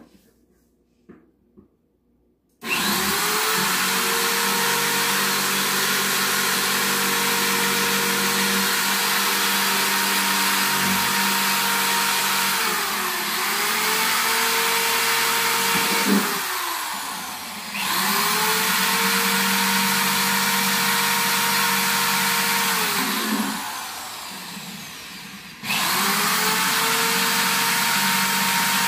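Corded electric drill boring holes in a black plastic plant pot. Its motor whine spins up about two and a half seconds in and runs steadily, then winds down and spins back up twice, as the trigger is let off and squeezed again.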